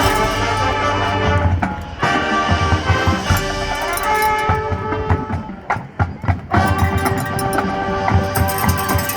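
Marching band playing: sustained brass and woodwind chords over drums. About five and a half seconds in, the band breaks into short punched hits with brief gaps, then the full sound returns.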